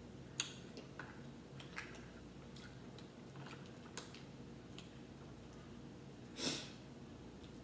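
Cooked crab-leg shells being cracked and picked apart by hand, giving scattered sharp cracks and clicks, with a louder, longer rustling noise about six and a half seconds in.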